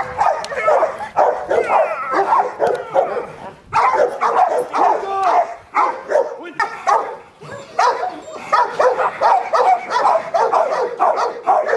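Rottweiler barking over and over in fast runs, several barks a second, with a short break a little before four seconds in.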